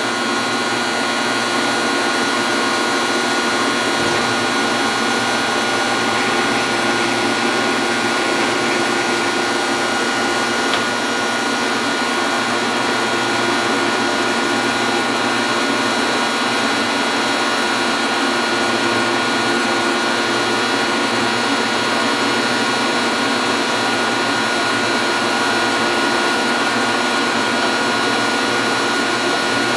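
Metal lathe running steadily, its motor and headstock giving a constant hum and whine.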